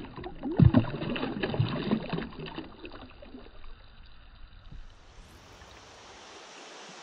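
A released bass splashing and thrashing at the water's surface beside the angler's hand, loudest about half a second in and dying away over the next couple of seconds. About five seconds in, a steady hiss takes over.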